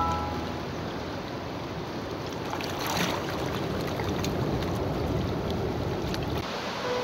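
Shallow seawater washing over and around coral rock, a steady sloshing rush with a stronger surge about three seconds in.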